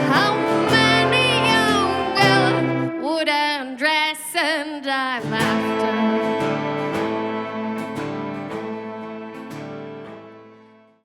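Acoustic folk band closing a song: a voice sings a long, swooping ornamented line over strummed guitar and held chords. The low notes drop out for a couple of seconds, then the band comes in on a final chord that rings and fades away to silence.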